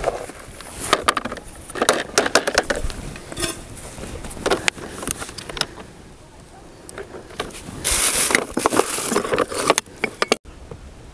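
Plastic lidded basket being set down and opened: its handles and hinged lid clatter in runs of sharp plastic clicks and knocks, loudest near the start and again about two-thirds of the way through.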